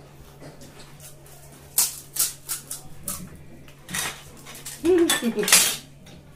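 Sharp crunches and clinks as crisp golgappa (pani puri) shells are cracked open and filled with a spoon from a steel bowl, several separate clicks over a couple of seconds. A short voiced sound follows about five seconds in, over a steady low hum.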